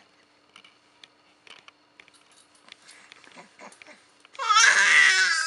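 A 4-month-old baby's loud, drawn-out vocal noise, wavering in pitch, starts about four seconds in, after a few faint clicks.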